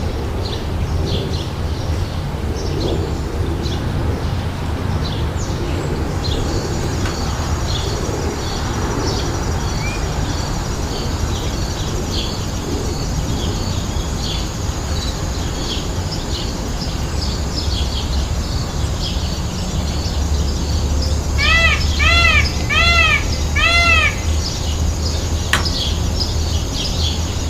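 Small birds chirping continuously, with four loud, harmonic, arching peacock calls in quick succession late on, over a steady low rumble.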